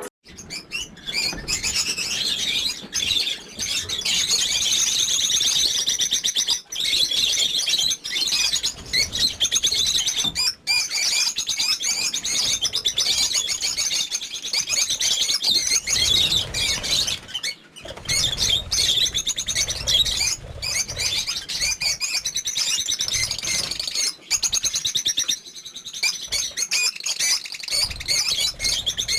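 Many lovebirds chattering together: a dense, continuous mass of high-pitched chirps and squeaks.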